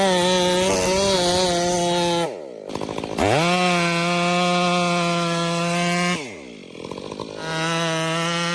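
Chainsaw running at full throttle while felling a tree. About two seconds in, and again about six seconds in, the throttle is let off: the engine speed falls away for about a second, then revs back up.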